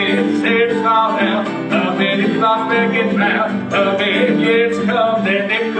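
Two acoustic guitars playing a country-gospel tune in an instrumental break between sung lines.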